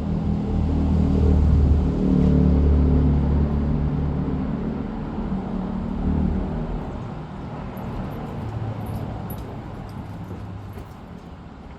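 A motor vehicle's engine rumble that swells to its loudest about two seconds in, then slowly fades away, like a vehicle driving past.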